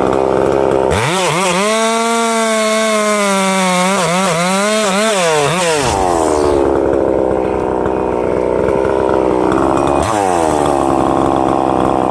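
Husqvarna 262XP 60cc two-stroke chainsaw run up to full throttle about a second in and cutting through ash, its pitch wavering and dipping under load. About halfway through it drops back to a lower speed, then revs up briefly again near the end.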